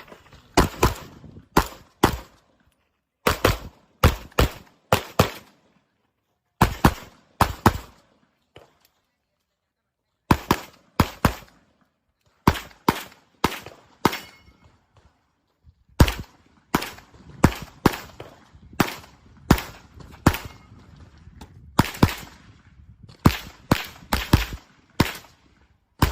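Handgun shots fired in quick pairs and short strings during a practical shooting course of fire, with a pause of about two seconds roughly a third of the way in.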